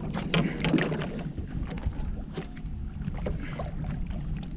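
Small waves slapping and lapping against a boat hull, with wind rumbling on the microphone and many short knocks and slaps.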